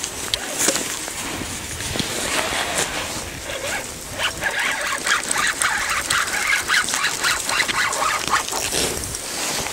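Spinning reel under heavy load, wound hard while a large asp is hauled up out of the water on the line. Its mechanism gives rapid clicking and squeaking, densest from about four seconds in, with rustling from handling.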